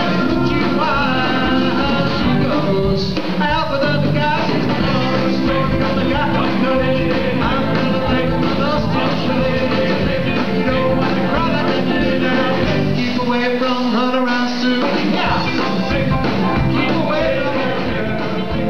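Live rock-and-roll band playing a 1950s-style song: lead and backing vocals over electric guitar and drums.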